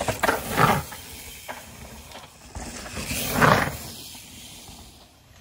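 Two mountain bikes passing close one after the other on a dry dirt trail, their knobby tyres rolling and sliding through loose dirt. The first pass comes about half a second in, and the second, louder one about three and a half seconds in.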